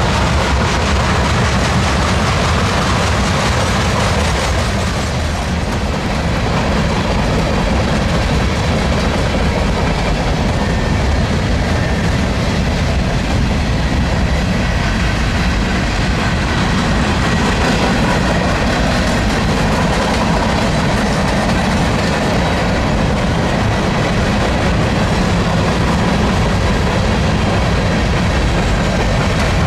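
Freight train rolling past, its cars' wheels running on the rails with a steady, dense noise.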